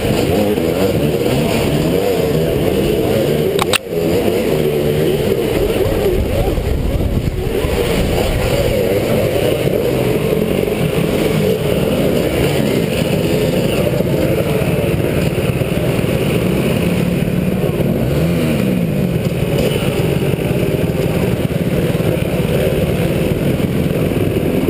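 Gas dirt bike engines revving and running close by on a muddy trail, rising and falling in pitch, over a heavy low rumble of wind and ride noise on a helmet camera. A short click with a brief drop about four seconds in.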